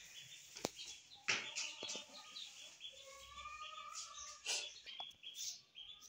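Indian ringneck parakeet giving soft, quiet chirps and chatter, with a few short clicks.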